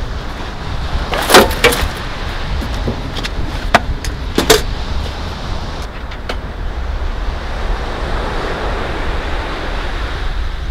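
Camp cooking gear clinking and clattering as it is unpacked from a padded bag: a cluster of sharp metallic clinks about a second in, more around four seconds, and one near six seconds. A steady low wind rumble runs underneath.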